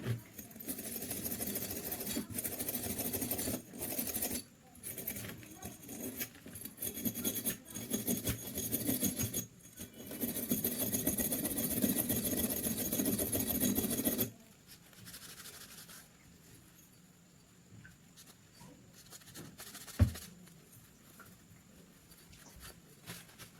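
Abrasive scraping on metal pistol parts, going for about fourteen seconds with a few short breaks, then stopping. After that it is much quieter, with one sharp click near the end.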